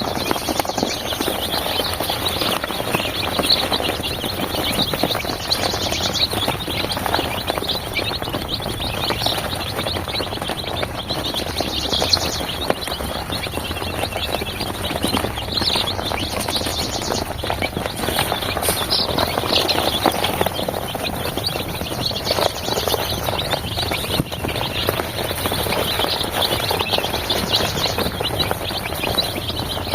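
A brood of four-day-old Sonali chicks peeping constantly, many high, short cheeps overlapping.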